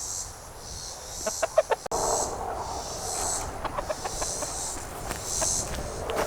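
Chickens clucking, with a high pulsing buzz that swells and fades about once a second behind them.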